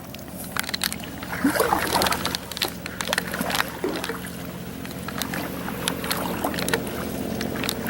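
A canoe being paddled on a lake: irregular knocks and clicks of the paddle against the hull, with water sloshing.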